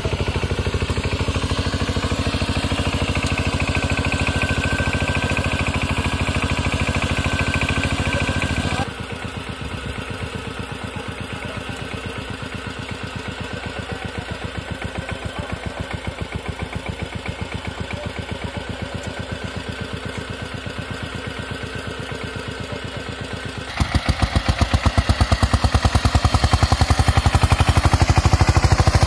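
Single-cylinder diesel engine of a walk-behind power tiller, running steadily with quick, even firing pulses as it drives cage wheels through flooded paddy mud. It drops abruptly quieter about nine seconds in and comes back louder near the end.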